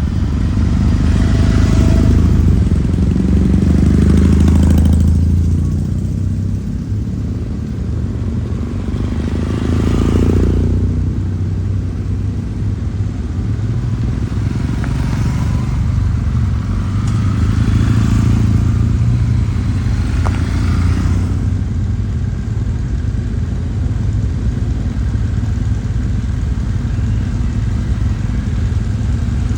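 Kawasaki W-series air-cooled parallel-twin motorcycle engine and exhaust running. The note swells louder three times: once near the start, again about a third of the way in, and for a longer stretch past the middle.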